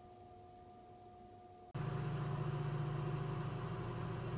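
Faint room tone, then, with a sudden jump in level a little under two seconds in, a steady low mechanical hum.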